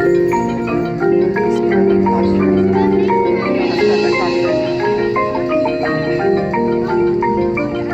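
School band music: mallet percussion such as marimba and xylophone plays quick struck notes over steadily held pitched notes.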